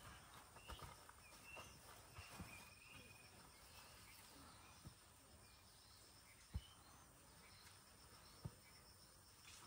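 Quiet scraping and soft thumps of loose soil being pushed and patted by hand over a smouldering charcoal pit, the loudest thump about six and a half seconds in and another near the end. Faint short chirps are heard in the background.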